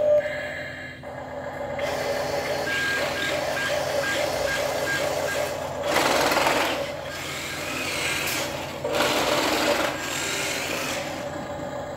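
Toy 1/20-scale RC dump truck running: its small electric motors whirr while its built-in speaker plays simulated truck sounds. A short run of high beeps comes about three seconds in, and two louder rushes of hissing noise come about six and nine seconds in.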